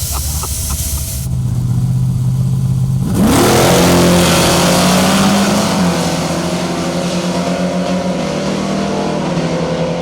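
A drag-racing truck's engine held at a steady rev, then launching about three seconds in: the pitch climbs quickly and it runs hard at high revs, with a step down in pitch about six seconds in.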